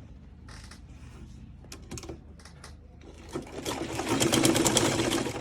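A few light clicks, then a sewing machine starts stitching about three and a half seconds in, running at a fast, even rate and stopping near the end.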